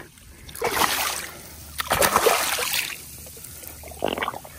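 A hooked black drum thrashing at the surface of shallow bay water, splashing in bursts: about half a second in, loudest around two seconds in, and briefly near the end.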